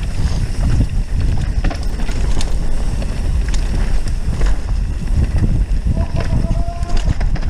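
Mountain bike descending a rough dirt trail: wind buffeting the microphone and a steady rumble of the tyres and frame over the ground, with scattered knocks and rattles from the bike. About six seconds in, a short steady whine rises above it.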